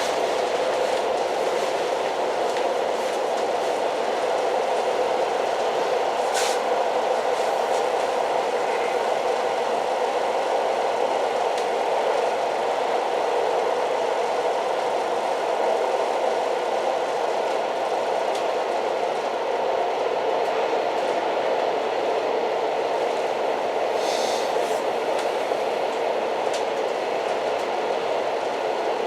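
Old train running steadily, a continuous even rumble. A brief sharp, high clatter cuts through about six seconds in, and a short cluster of them comes again near the end.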